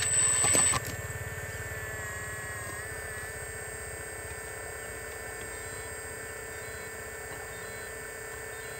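Radio-controlled model excavator's motors whining steadily as it crawls on its tracks, the pitch wavering briefly about two seconds in. A short, louder burst of clattering in the first second.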